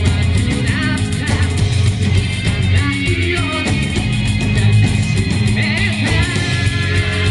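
Rock band playing live: electric guitars, bass guitar and a drum kit with a steady cymbal beat.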